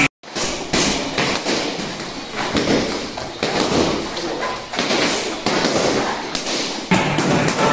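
Boxing gloves punching focus mitts held by a trainer: a run of sharp slaps and thuds at uneven spacing, combinations of quick punches.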